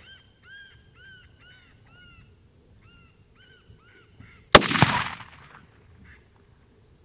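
A run of short, high, pitched calls, about two a second, then a single loud rifle shot about four and a half seconds in, echoing away over about a second.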